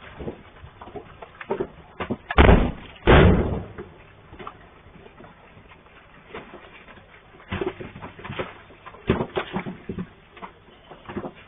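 Two heavy crashes of falling rock about a second apart, deep and lasting about half a second each, followed by scattered lighter knocks and clatter.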